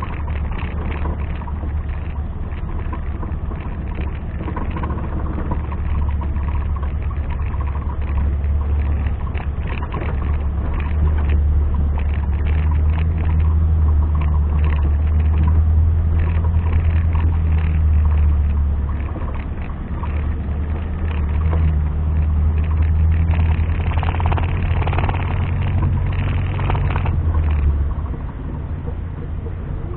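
Off-road 4x4 engine running under load, a deep steady hum that swells and eases with the throttle, dropping back briefly about two-thirds through and again near the end.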